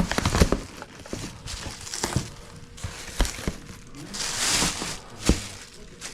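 Cardboard box and packaging being handled while flatbed straps are unpacked: a few sharp knocks and clicks, with a brief rustle about four seconds in.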